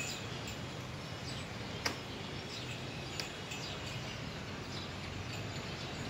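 Outdoor farmyard ambience: steady low background noise with faint, scattered bird chirps and a single sharp click about two seconds in.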